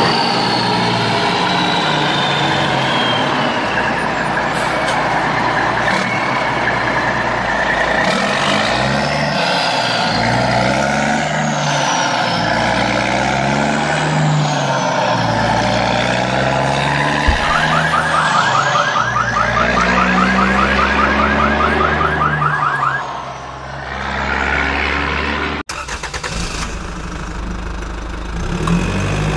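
Truck engine running, its pitch rising and falling as if revving and shifting. About two-thirds of the way in there is a fast, even rattle lasting several seconds, and the sound cuts off suddenly near the end.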